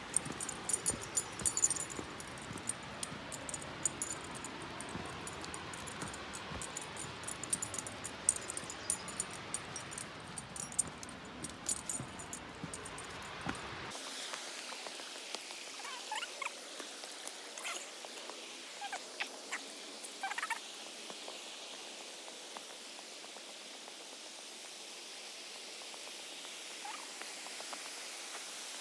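Footsteps crunching and scuffing on a rocky, gravelly trail, with rustling and sharp clicks. Partway through this gives way abruptly to a steady hiss of flowing creek water, broken by a few short chirps.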